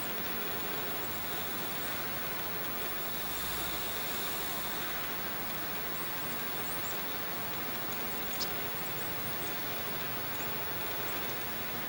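Steady rushing background noise, with faint, high, short chirps of small feeder songbirds scattered through the second half and one sharp tick about eight and a half seconds in.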